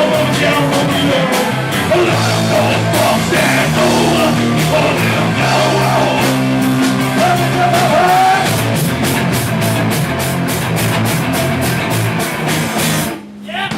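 Loud live punk rock: a band playing with drums, guitars and sung vocals. The music drops out abruptly near the end.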